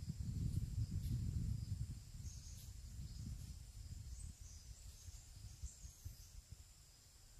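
Wind buffeting the microphone in an irregular low rumble, strongest in the first two seconds and then easing off. Behind it, a faint steady insect drone and a few short bird chirps.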